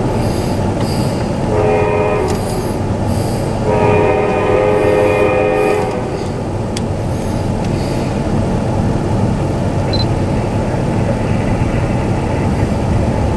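Locomotive air horn sounding a short blast and then a long one, over a steady low rumble.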